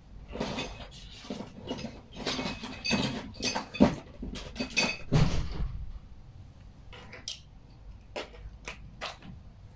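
An irregular clatter of knocks and clinks, like hard objects being handled, busy for the first half and then thinning to a few scattered clicks.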